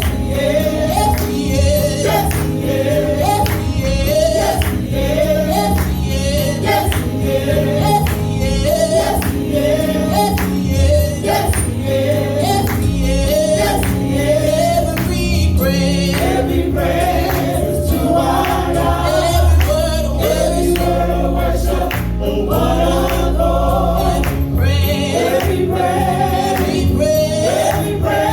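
Gospel praise singing by a choir with a band and tambourine: a short sung phrase repeated over a steady beat, the singing growing fuller in the second half.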